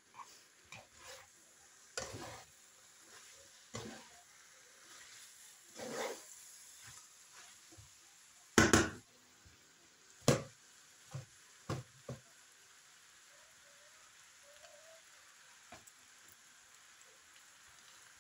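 Instant noodles frying in a frying pan with a faint steady sizzle, while a spatula stirs and turns them, scraping and knocking against the pan every second or two. The loudest knock comes about nine seconds in.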